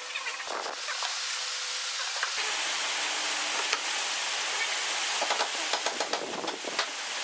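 Wooden jig parts being handled and fitted together on a workbench: scattered light knocks and clicks of wood on wood and on bolts, over a steady hiss.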